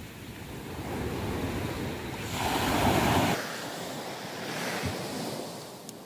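Ocean surf breaking and washing in, swelling to its loudest about two and a half seconds in and then easing off, with wind buffeting the microphone.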